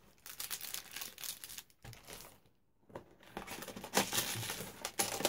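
Plastic bags crinkling and rustling as they are handled, in irregular bursts with short pauses, loudest about four seconds in.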